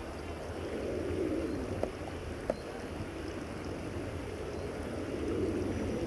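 Wind rumbling on the camera microphone, a steady low outdoor noise, with two short clicks about two seconds in.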